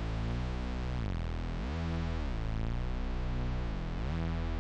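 Electronic background music with synthesizer pads, in a repeating pattern of swelling chords roughly every second.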